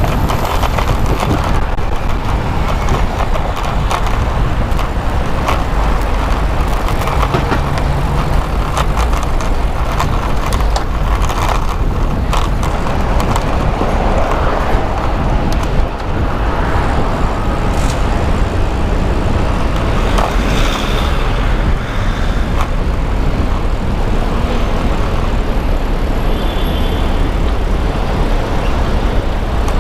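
Steady road and traffic noise heard from a moving bicycle, with wind rushing over the microphone.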